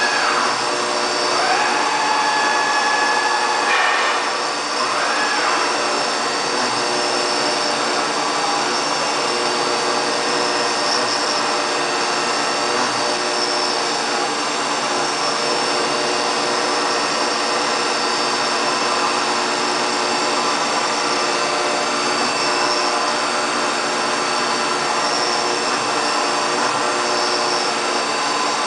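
High-speed CNC mill cutting aluminium: a steady, dense machining noise with a high spindle whine made of several held tones. In the first few seconds a couple of tones glide up and down as the cut changes, then it runs steadily.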